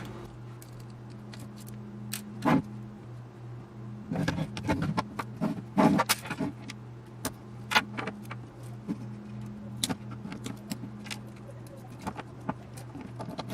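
Small metal clicks and clinks as screws and parts of a radio control box are handled and taken apart by hand, irregular and scattered, a few louder around the middle, over a steady low hum.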